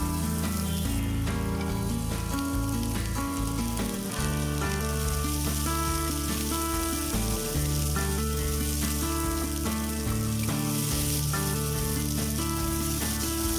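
Corn kernels sizzling steadily as they fry in hot oil, with background music playing over it.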